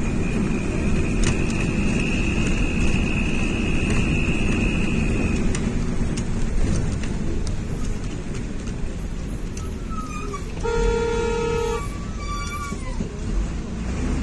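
Road and engine noise heard from inside a moving vehicle driving through snow, with a steady high whine for the first five seconds. About eleven seconds in, a car horn sounds one note for about a second, followed by a short higher beep.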